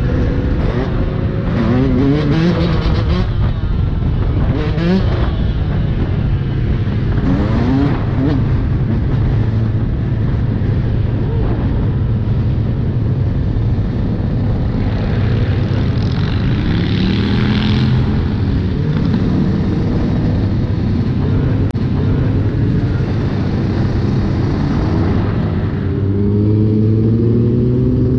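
Yamaha YZ125 two-stroke dirt bike engine revving in repeated rising sweeps as it is ridden, with other motorcycles running close by.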